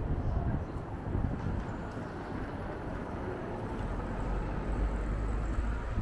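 Wind buffeting the microphone in low, gusty rumbles, heaviest in the last two seconds, over the steady noise of a city street.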